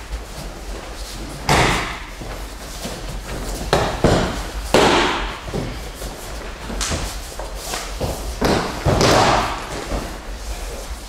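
Bodies hitting the mats during aikido throws and breakfalls: a series of about six sharp thuds and slaps, irregularly spaced.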